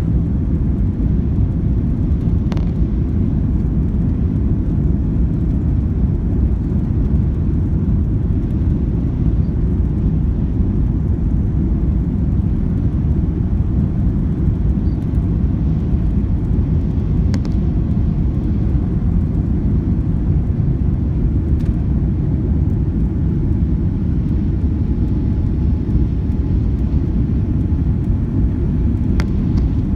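Airliner cabin noise: the jet engines and airflow heard from inside the cabin as a steady, even low rumble, with a few faint clicks.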